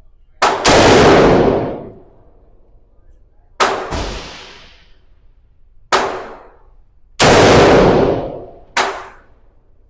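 Gunshots at a shooting range: about seven loud shots at irregular intervals, some fired in quick pairs, each ringing off over about a second.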